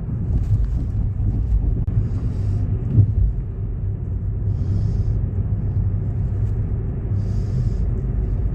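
Low, steady rumble with a soft hiss that comes and goes about every two and a half seconds.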